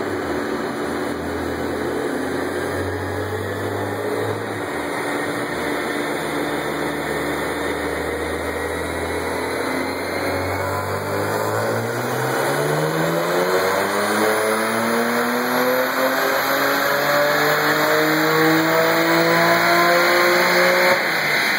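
BMW N54 twin-turbo inline-six in a 2008 335i running on a chassis dyno: it holds a steady low rpm for about ten seconds, then makes a full pull with the engine note rising steadily until it lets off near the end. The tune was overboosting and falling back to the stock map on these runs, so the pull starts out strong and then tails off.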